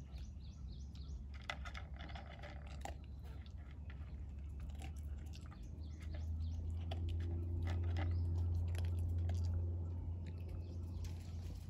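A dog eating from a plastic bowl, with a run of quick chewing and crunching clicks. A steady low rumble swells about halfway through and fades near the end.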